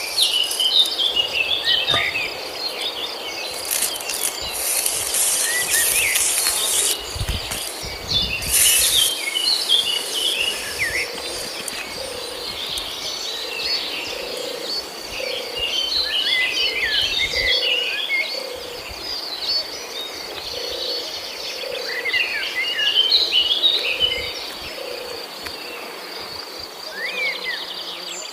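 Outdoor ambience of many birds chirping over a steady high insect drone, with a few brief bursts of high hiss in the first ten seconds.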